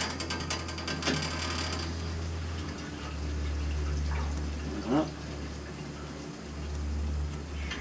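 Water rushing through the hydronic heating pipes as the loop is filled and purged, over a steady low hum. A short rising squeak about five seconds in.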